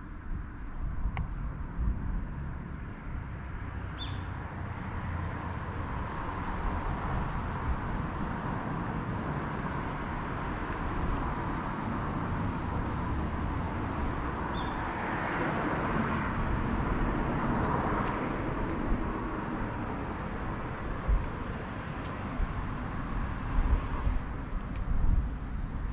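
Street ambience with passing road traffic, one vehicle growing louder and fading around the middle, over a low rumble. A bird chirps briefly twice in the first half.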